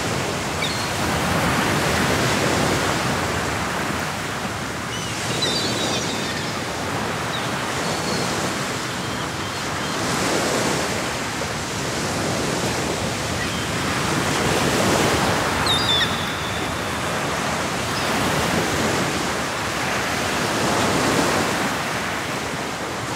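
Ocean surf breaking on a rocky shore: a steady wash of waves that swells and falls back every few seconds.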